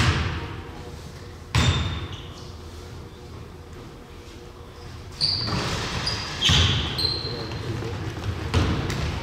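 Basketball thumping on a gym floor several times at irregular intervals, echoing in a large hall, with a few short high squeaks and players' voices in between.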